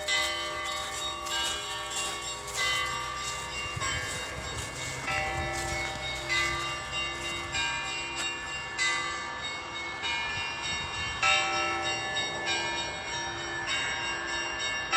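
Church bells rung from a bell tower: several bells of different pitch struck in a steady repeating rhythm, the high small bells chiming quickly over a lower bell.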